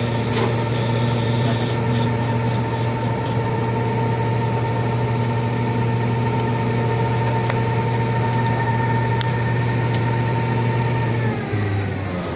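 An engine running steadily at one speed, then slowing with a falling pitch near the end as it winds down.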